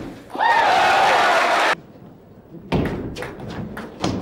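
Spectators cheering and shouting after a table-tennis point for about a second, cut off sharply. Then, after a short lull, a rally begins: a string of sharp clicks as the ball strikes bats and table.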